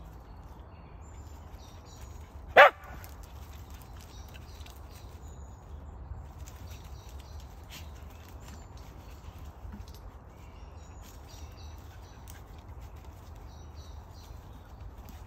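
A Jack Russell terrier gives a single short bark about two and a half seconds in; otherwise only a low, quiet outdoor background.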